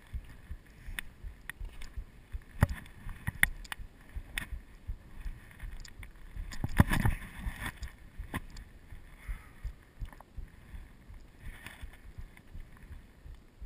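Wind rumbling on the microphone while walking over rocky forest ground. Irregular footfalls and knocks come every half second to a second, the loudest about seven seconds in.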